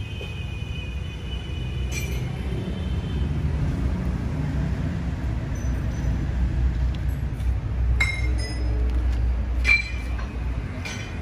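Steady low mechanical rumble with a faint high squeal over the first few seconds, and sharp metallic clinks that ring briefly, one about two seconds in and three more in the second half.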